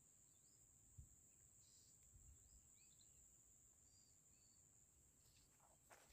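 Near silence: a faint, steady high-pitched insect drone, with a few faint bird chirps.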